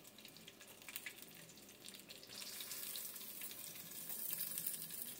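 Hot oil frying: a faint, steady hiss with scattered small crackles, growing a little louder about two seconds in.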